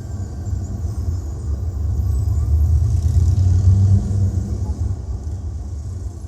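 Deep, rumbling bass played back through a high-end hi-fi loudspeaker system, swelling to its loudest about three to four seconds in and easing off toward the end.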